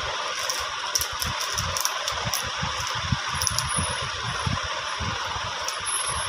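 Small clicks and light rattling of jewellery being handled and taken out of a small container, with soft low handling bumps, over a steady background hiss.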